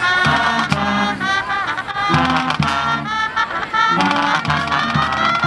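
High school marching band playing a tune, trumpets and other brass over a line of low bass notes.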